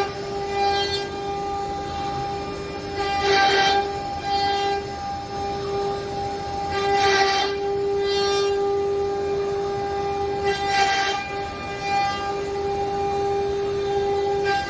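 4-axis CNC router running: the spindle whines at a steady pitch, and a rush of cutting noise swells about every four seconds as the bit passes through the workpiece.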